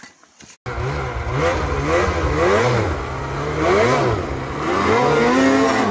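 Snowmobile engine revving up and down again and again, its pitch rising and falling about once a second. It starts suddenly about half a second in.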